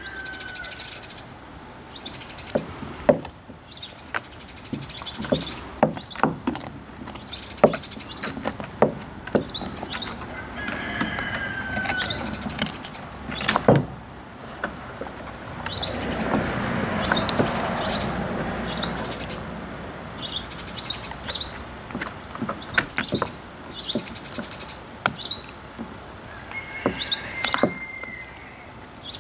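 Siberian husky gnawing a raw cow marrow bone, with irregular sharp clicks and knocks of teeth and bone. Birds chirp throughout, one giving a short whistled call that falls in pitch, heard three times; a soft rushing sound rises for a few seconds midway.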